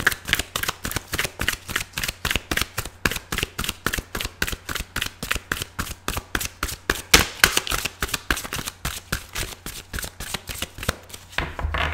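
Deck of tarot cards being shuffled by hand, overhand: a quick, steady run of card slaps and riffles, about five a second, with one louder slap about seven seconds in.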